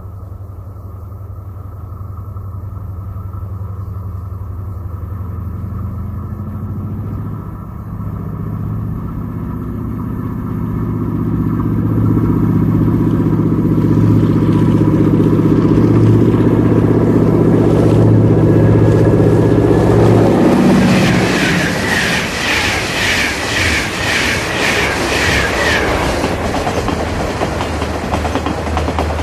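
A train approaching and passing: a low, steady engine rumble builds over about ten seconds to its loudest, then near two-thirds through gives way to a rhythmic clatter about twice a second that lasts some five seconds as the rumble falls away.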